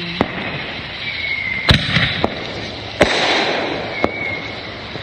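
Consumer fireworks going off: five sharp bangs spaced roughly a second apart, the two loudest about a third and halfway through, with a steady hiss between them and two short whistles.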